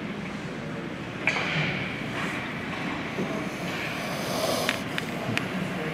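Ice rink sounds during a hockey game: a steady scraping hiss of skate blades on the ice. There is a sharp knock about a second in and two sharp clacks near the end, from sticks and the puck.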